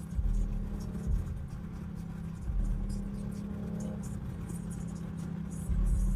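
Infiniti Q50 driving on wet streets, heard from inside the car: a steady engine hum over low road rumble, swelling a few times as the car accelerates.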